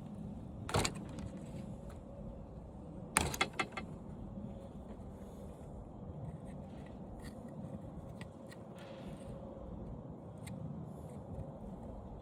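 Handling clatter from taking apart an old television: wires and small parts being pulled and knocked, with a sharp clack about a second in, a quick run of clacks a little after three seconds, then lighter scattered clicks over a faint steady hum.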